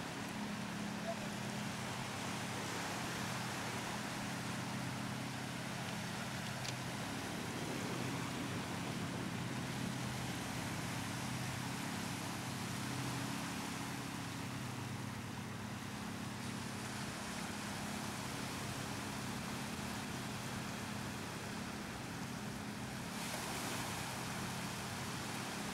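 Wind and choppy lake water, with a low, steady motor hum underneath.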